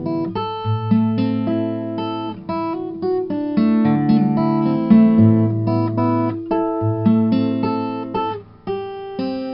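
Background music: acoustic guitar playing plucked and strummed notes.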